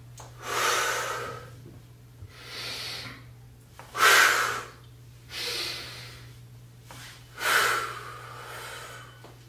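A man's heavy, forceful breathing during a kneeling steel-mace exercise: about five loud breaths, one every second or two, sharp exhales timed with the effort of each swing.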